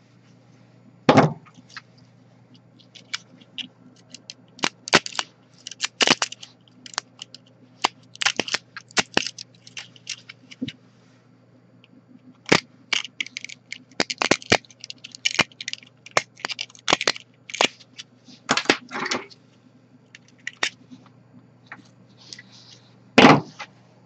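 3D-printed plastic support material snapping and cracking as it is picked and pried off a printed buckle with pliers and a pick: many irregular sharp clicks and scrapes, with the loudest cracks about a second in and near the end.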